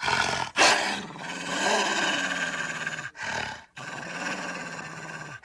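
Dire wolf sound effects: a run of deep, rough dog-like growls and snarls. A sharp, loud snarl about half a second in leads into a long growl, then a short one, then another long growl.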